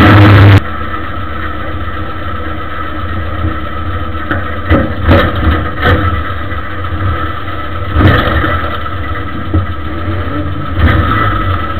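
Ministock race car's engine heard from inside the car, loud and distorted, then dropping sharply under a second in to a lower, steadier running note. Several sharp knocks and rattles come through the body shell.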